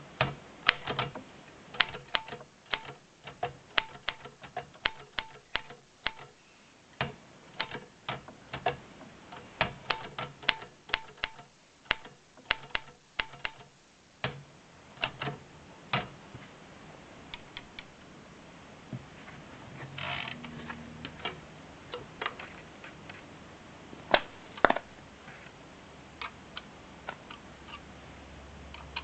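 Remington Monarch manual typewriter being typed on: a quick, uneven run of type-bar clacks, then a longer rasping mechanical sound about twenty seconds in, then scattered clicks with two loud strikes near the end.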